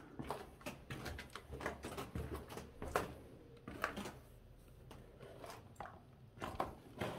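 Footsteps scuffing and crunching on a debris-strewn floor, irregular and fairly quiet, with a small cluster of sharper crunches near the end.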